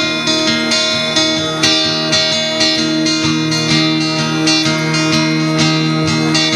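Acoustic guitar strummed in a steady rhythm, with chords ringing on between the strokes.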